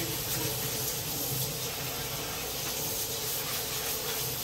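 Running tap water giving a steady hiss while rice is rinsed.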